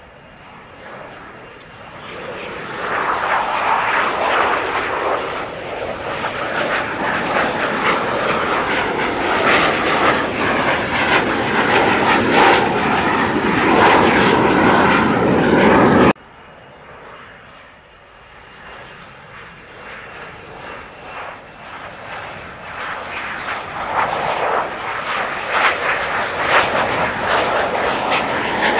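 F-35B Lightning's F135 turbofan jet engine, its noise building over the first few seconds and staying loud. About 16 seconds in the sound cuts off suddenly, and a second, quieter stretch of jet noise starts and swells again toward the end.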